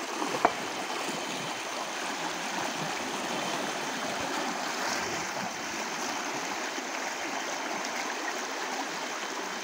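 Shallow rocky stream rushing steadily over stones. A single sharp knock about half a second in.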